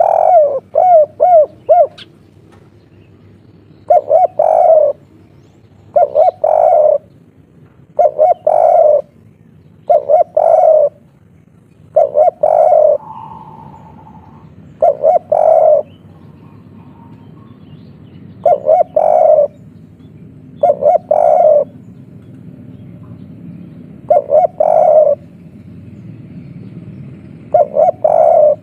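Spotted dove cooing in the 'kuk 3' three-beat style. A short phrase of deep coos repeats about every two to three seconds, with a quicker run of notes at the start.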